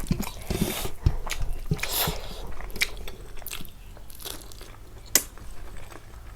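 Close-up eating sounds: crunchy bites and chewing of a rice-and-pork meal, a string of small mouth clicks with one sharper crunch about five seconds in.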